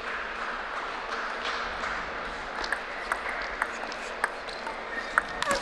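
Table tennis rally: the ball clicks sharply off the paddles and table about twice a second, over the steady murmur of an indoor hall crowd.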